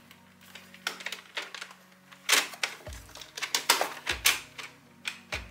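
Hard plastic clicking and knocking from a Xiaomi Mi Robot Vacuum-Mop Essential's body and top cover being handled and turned over. Several duller thumps come in the second half, about a second apart.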